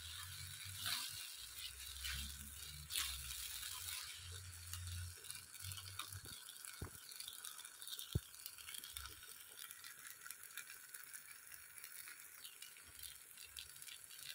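A spatula stirring and scraping thick semolina halwa in a pan: faint scrapes and a few light clicks over a soft hiss.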